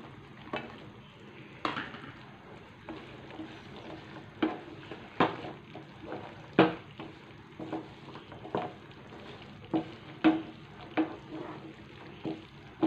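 A slotted spatula stirring cut French beans into a pan of simmering dal gravy, knocking and scraping against the pan in irregular taps about once a second over a faint bubbling.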